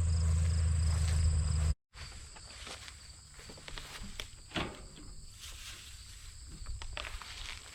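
A steady low engine hum that cuts off after about two seconds, followed by quieter outdoor sound: scattered rustles like steps through cut hay, over a thin high insect trill.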